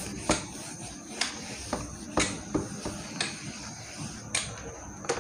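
Felt duster wiping marker off a whiteboard: a series of short, soft knocks and scuffs at irregular intervals over a faint steady hiss.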